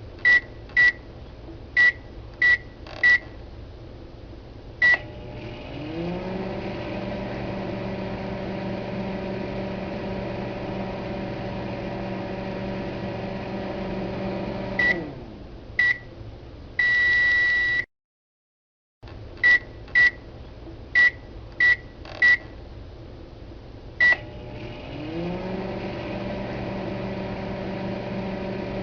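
Microwave oven being set and run: a string of short, high beeps, then the oven starts with a steady hum whose pitch rises briefly as the fan and turntable come up to speed. The hum stops about halfway through with two beeps and a long tone, then after a moment of silence the beeps and the running hum repeat.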